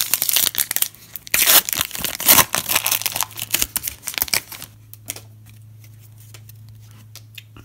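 A trading-card pack wrapper being torn open and crinkled in the hands, the rustling stopping about two-thirds of the way through and leaving a low steady hum.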